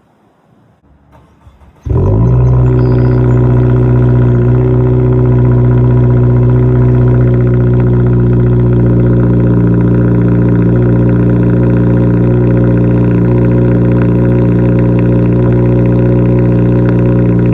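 2026 Subaru WRX's turbocharged 2.4-litre flat-four engine cranks and fires about two seconds in, then settles into a steady, loud cold-start idle through an aftermarket axle-back exhaust.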